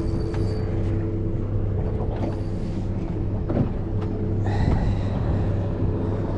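Boat motor running steadily at low speed, a constant low hum with water and wind noise around it.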